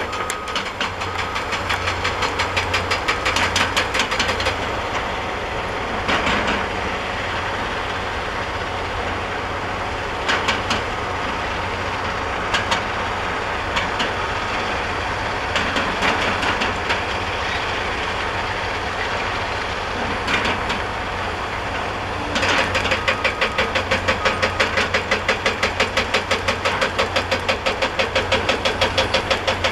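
Excavator-mounted hydraulic rock breaker hammering limestone over a steady diesel engine. The hammering comes in short bursts at first, then from about three quarters of the way in runs continuously at about five blows a second.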